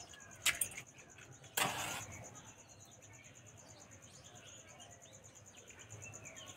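A match struck on a matchbox: a single click, then a short scratchy strike about a second and a half in. Faint insect trilling carries on behind it.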